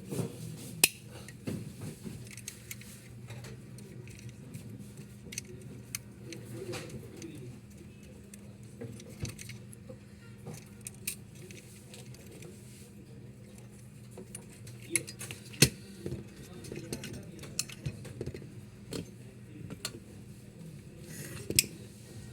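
Scattered clicks and clinks of small hard objects being handled, a few of them sharper and louder, over a steady low hum.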